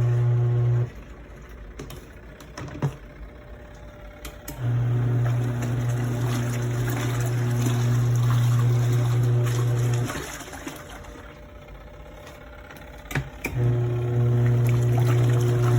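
Portable twin-tub washing machine's wash motor humming in spells of several seconds, cutting off and starting again, with water trickling in the pauses. The owner says it makes noise but does not wash at all.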